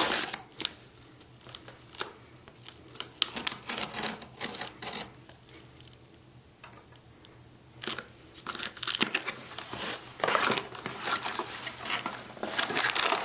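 A shipping package being opened by hand: packaging crinkling and tearing in irregular bursts and clicks, sparse for a while and then busier over the last few seconds.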